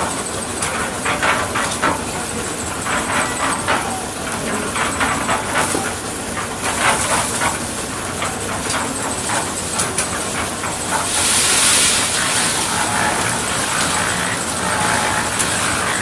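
Portable concrete mixer running, its drum turning with a steady clatter of mix inside. About two-thirds of the way in, a rushing hiss swells for about a second.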